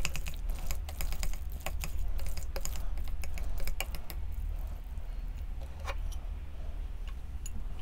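A quick run of small, sharp clicks and taps, dense for the first few seconds and sparser after, over a low steady hum.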